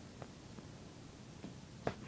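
Quiet room tone with two faint clicks, one a quarter second in and a sharper one near the end.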